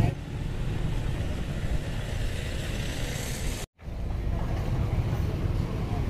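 Steady outdoor background rumble and noise with no distinct event, cut off completely for a split second about two-thirds of the way through.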